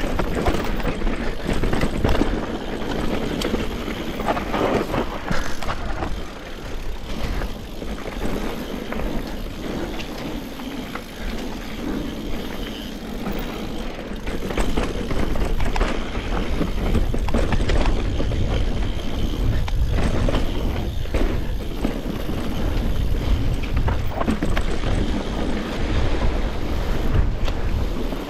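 Mountain bike descending a rocky trail: a constant rush of tyre and riding noise with frequent knocks and rattles as the bike clatters over rocks.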